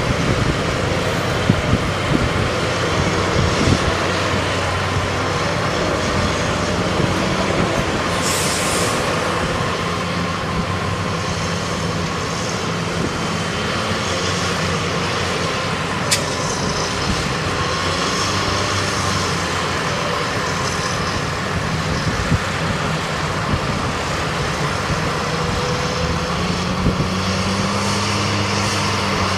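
Diesel tractor engines running steadily under load as the tractors push and compact chopped corn on a silage pile. A brief hiss comes about eight seconds in.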